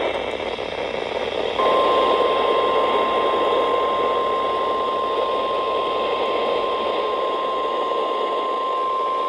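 Weather radio receiver hissing with static, then about one and a half seconds in the NOAA Weather Radio 1050 Hz warning alarm tone starts: one steady tone held over the hiss, the signal that a warning message is about to be read.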